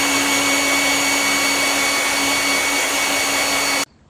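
Hand-held hair dryer running at a steady pitch, a constant whine over rushing air, cut off abruptly near the end.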